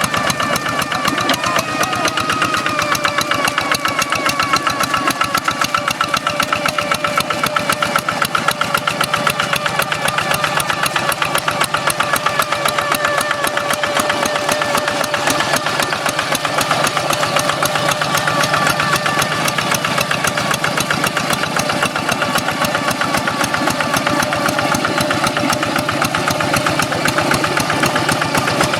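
A hand tractor's Kubota single-cylinder diesel engine running steadily, with a fast, even firing beat and a whining "ngiung ngiung" tone over it.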